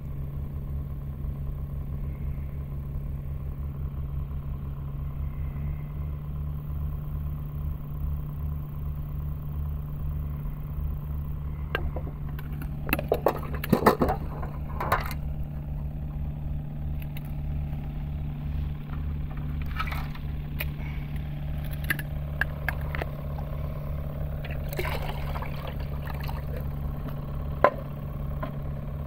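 A steady low motor hum at a fixed pitch. Scattered sharp clicks and light knocks come in the middle and again near the end.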